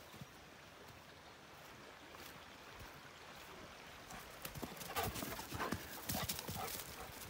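Footsteps crunching through dry leaf litter and twigs on a forest floor. They start faint and grow louder about halfway through, becoming a run of sharp, irregular crunches and clicks.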